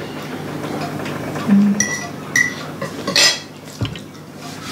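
Cutlery clinking and scraping on plates while people eat: two short ringing clinks about two seconds in, then a louder brief scrape a little after three seconds.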